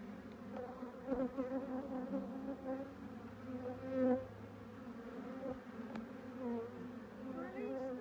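Honey bees humming over the open top bars of a hive, a steady drone with wavering pitch as bees fly close by, loudest about four seconds in. The colony's hum has gone down: the queenless bees have relaxed.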